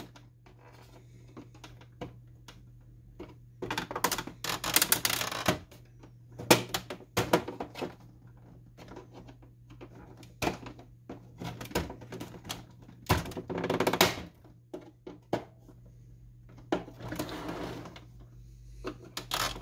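Flathead screwdriver prying and scraping at the plastic housing of an Epson WF-2650 printer: irregular clicks, knocks and short scraping bursts, with pauses between.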